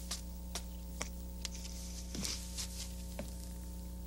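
A steady low hum with a few faint, irregular clicks and no speech.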